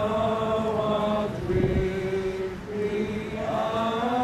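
Crowd of people singing a hymn together, slow long held notes changing pitch about once a second, one note sliding upward near the end.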